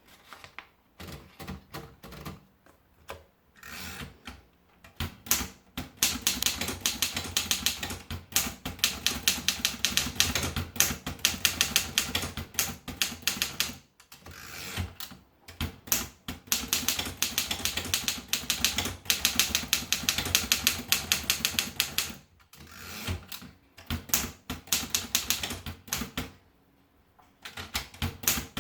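Remington Travel-Riter portable manual typewriter being typed on: long runs of quick, sharp keystrokes broken by a few short pauses.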